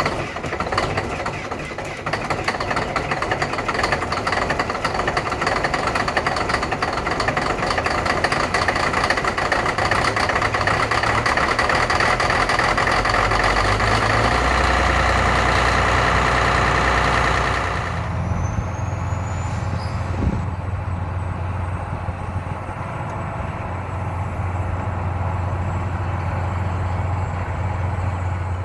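Geothermal well-drilling rig running loud, a dense mechanical noise over its engine. About 18 seconds in the higher noise cuts off suddenly, leaving a steady low engine rumble.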